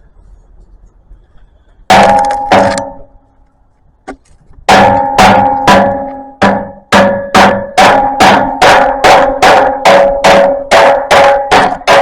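Catalytic converter on a Ford E-350 460 camper being struck from underneath, giving ringing metallic clangs: two about two seconds in, then a steady run of about two to three a second from near the five-second mark. The owner is checking for loose innards, which he suspects are behind the camper's poor acceleration.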